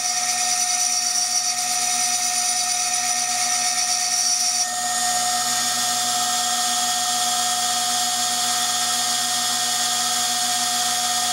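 CNC milling machine spindle whining steadily while its sharp cutter engraves a glass beer bottle. The upper tones of the whine change abruptly just under five seconds in.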